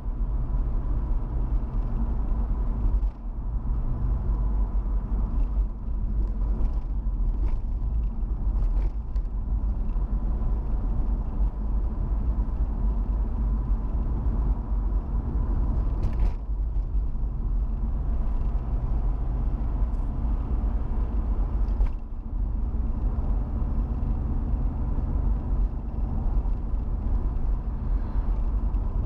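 A car driving along a road, heard from inside the cabin: a steady low rumble of engine and tyres, with a faint steady high whine. A couple of brief knocks come through, one about midway and one a few seconds later.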